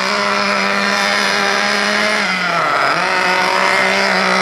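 The new nitro engine of an FTX Outrage 1/8-scale buggy runs at low throttle while the buggy is driven slowly during its break-in. The engine note holds steady, dips in pitch about halfway through and picks back up.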